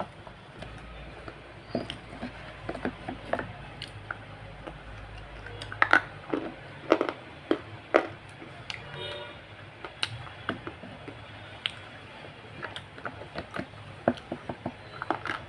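Close-up eating sounds: bites and crunchy chewing of a hard white food stick, an irregular run of crisp clicks, loudest near the middle, over a faint steady hum.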